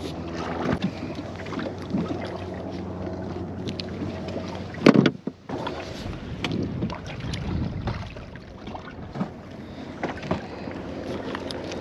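A boat motor hums steadily under wind on the microphone, fading out about halfway. A single loud knock comes about five seconds in, with small clicks scattered through.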